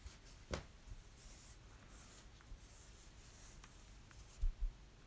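Faint rustling of denim and thread being drawn through it during hand sashiko stitching, with a sharp click about half a second in and two soft thumps near the end.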